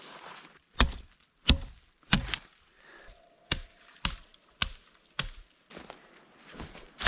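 A thin tree trunk being chopped: a series of about ten sharp wooden strikes at a steady pace of roughly one every half second, with a short pause about a third of the way in.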